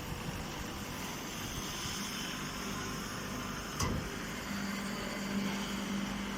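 Hydraulic grass baler running, a steady machine noise with a sharp click about four seconds in and a steady low hum that sets in just after.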